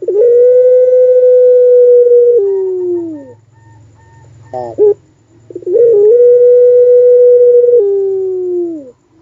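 Puter pelung, a long-voiced barbary dove, giving two long howl-like coos. Each is held at one steady pitch for about two seconds, then slides downward. A short stuttering coo comes between them.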